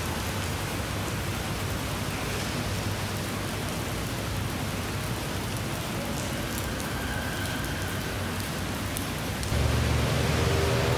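A steady, even hiss, with a low hum joining about nine and a half seconds in.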